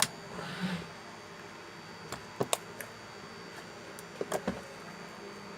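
Homemade soap slime being handled by hand: a few short clicks and soft squishes, in small clusters, over a faint steady hum.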